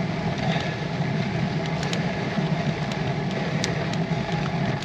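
Steady low rumble of a road bike rolling slowly uphill on a broken tarmac surface, picked up by a bike-mounted camera, with a few faint ticks.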